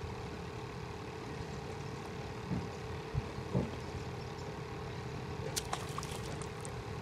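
A steady low engine hum, as of a motor idling, with a constant tone. A few faint clicks come near the end.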